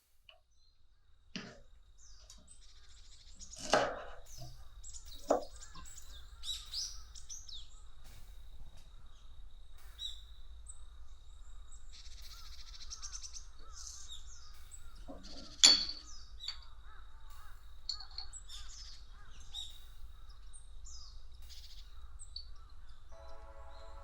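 Birds chirping and calling outdoors, many short high calls with two louder calls, over a low steady background hum. Music comes in near the end.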